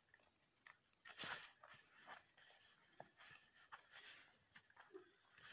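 Faint scraping and crunching of fingers kneading a ground herbal powder with honey in a stainless steel bowl, as a slightly louder rub about a second in.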